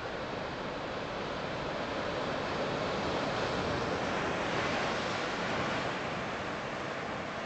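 Turbulent sea water surging and breaking over shore rocks: a steady rush of surf and spray that swells a little in the middle.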